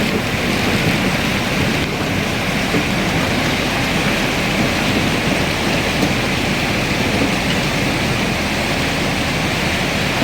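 Excavator's diesel engine running steadily, an even, unbroken noise with hiss.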